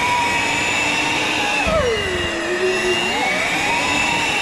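Electric hand mixer running, its beaters whipping a thick creamy pie filling. The motor's whine sags in pitch a little before halfway, with a short low thud, and climbs back about a second later.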